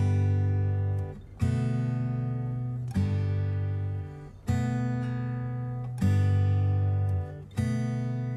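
Background music: an acoustic guitar strumming chords, one about every second and a half, each ringing out and fading before the next.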